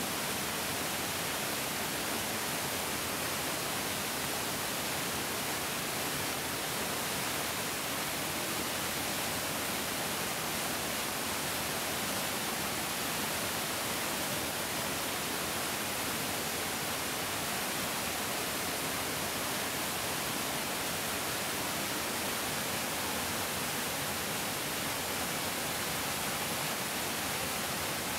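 Mountain stream water rushing and flowing steadily, an even hiss with no breaks.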